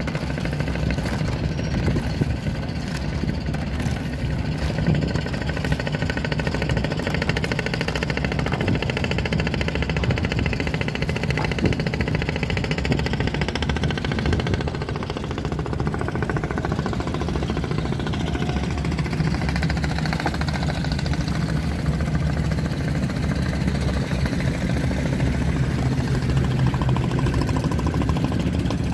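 Steady low drone of motorboat engines running on a busy river, with a rise and fall in pitch partway through as a boat passes close.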